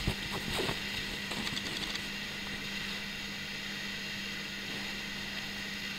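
Cotton fabric being handled and pulled, with a few soft rustles in the first two seconds, over a steady low hum.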